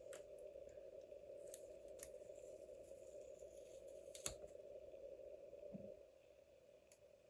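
Faint paper-crafting handling at a desk: a few small clicks and taps from paper pieces and tools being moved, the sharpest about four seconds in, over a steady low hum.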